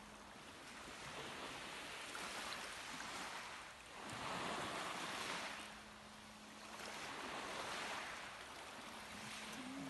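Sea surf: waves breaking on the shore and washing back, swelling and fading about three times.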